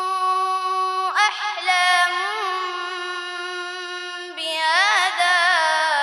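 A boy's voice reciting the Quran in melodic tajweed chant, drawing out long held notes with ornamented turns in pitch. A new phrase begins about a second in, and another about four and a half seconds in.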